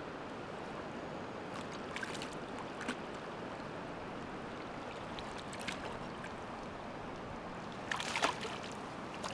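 River current flowing steadily around a wading angler, with a few short splashes. About eight seconds in, a hooked fish thrashes and splashes at the surface close by.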